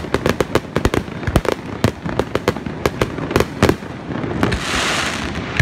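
Fireworks display with shells bursting in a rapid run of bangs and pops, several a second. About four seconds in, the bangs thin out under a rushing hiss that lasts about a second.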